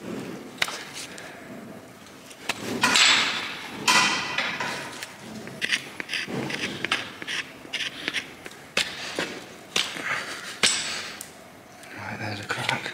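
Hoof knife scraping and picking at the horn of a lame heifer's hoof sole, with irregular sharp clicks and knocks and a loud rushing noise about three seconds in.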